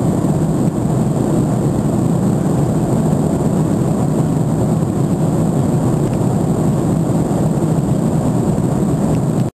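Steady cabin noise of an airliner in cruise: the low, even rush of jet engines and airflow heard through the window seat. It cuts off abruptly at the very end.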